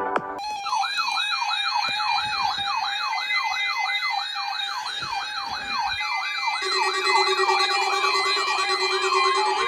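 Several weather alert radios sounding their siren alarms at once, overlapping warbles that sweep up in pitch about three to four times a second. About two-thirds of the way through, a lower steady tone joins in.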